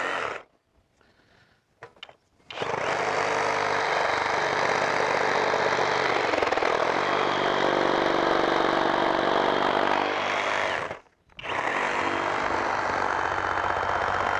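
FLEX 24V cordless reciprocating saw cutting through a wooden block full of holes. It gives a short blip at the start, then runs cutting steadily for about eight seconds, stops briefly, and starts cutting again.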